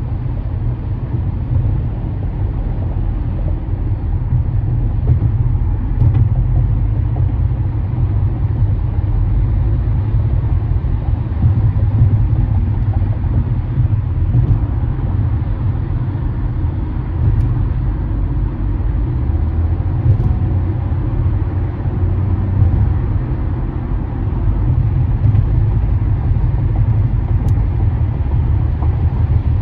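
Steady low rumble of a car cruising at freeway speed: engine and tyre-on-pavement road noise.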